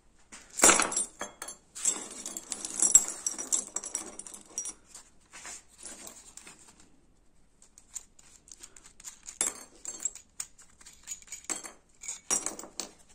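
Small zinc-plated steel hardware (nuts, coupling nuts, slotted brackets, hose clamps) clinking and rattling as it is handled and set down on a wooden workbench. A loud clatter comes under a second in, busy rattling follows for a few seconds, then scattered clicks and short clinks toward the end.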